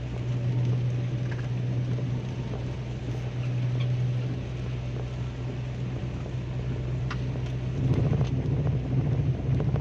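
Car cabin noise while driving on a wet highway in heavy rain: a steady low drone from the engine and tyres under a hiss of rain and spray, growing louder and rougher about eight seconds in.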